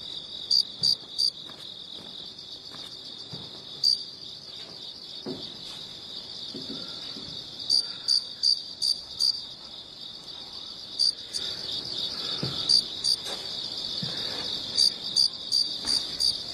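Crickets chirping: a steady high-pitched trill with louder short chirps that come in clusters every few seconds.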